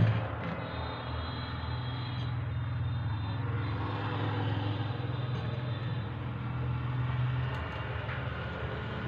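Steady low engine hum of a running motor vehicle, holding an even pitch.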